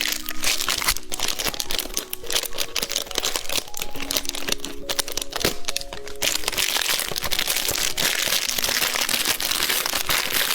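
White Rabbit candy wrappers crinkling and crackling as they are handled, growing denser and steadier after about six seconds, over light background music.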